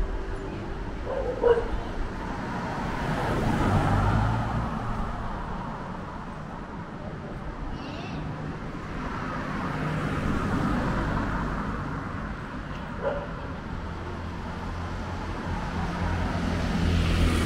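Street ambience with vehicles passing, the noise swelling and fading about three times, and a dog giving a short yelp twice, once near the start and once near the end.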